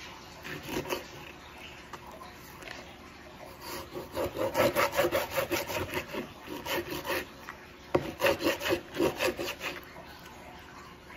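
A long kitchen knife sawing back and forth through raw salmon, its blade scraping on the cutting board. A few light strokes come first, then two runs of rapid, regular scraping strokes, the first about four seconds in and the second about eight seconds in.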